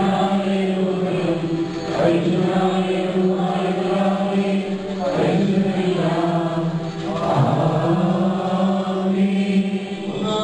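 Voices singing a Malankara Catholic (West Syriac rite) liturgical chant in long, held notes, with the melody shifting pitch a couple of times.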